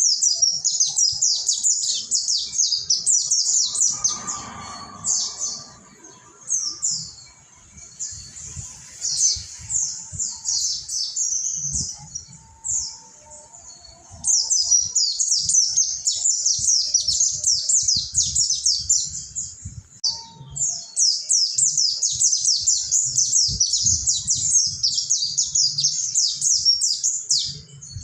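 Mountain white-eye (pleci monty) singing a long, rapid, continuous song of quick high notes that sweep downward, pausing briefly a few times.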